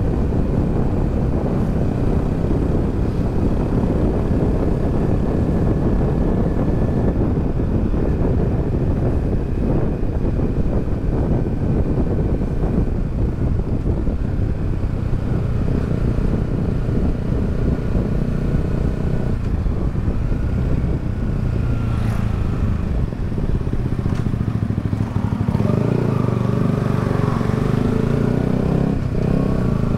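Yamaha XSR 155's single-cylinder four-stroke engine running under way, heard through heavy wind rumble on a helmet-mounted microphone. In the last few seconds the wind eases and the engine's note stands out more clearly.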